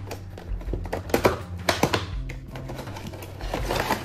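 Crackling and clicking of a cardboard figure box and its clear plastic blister tray being handled and pulled open, in sharp clusters about a second in and near two seconds, with a longer crackle near the end. Background music with a steady low bass line runs underneath.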